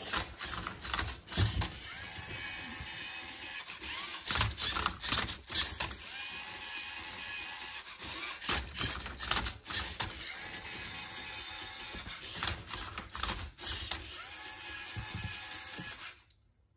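LEGO Mindstorms EV3 MindCuber robot working a Rubik's cube: motors whirring steadily, with bursts of clattering clacks every few seconds as the arm tips and the turntable turns the cube. It cuts off abruptly near the end.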